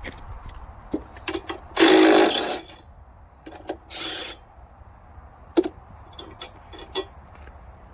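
Power drill run in two short bursts: a loud one of under a second about two seconds in, then a quieter, shorter one near four seconds. Scattered clicks and knocks of handling come between.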